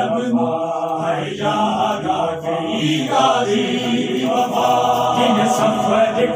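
Noha, a Shia lament, chanted in a melodic vocal recitation: long held lines with short breaks between phrases.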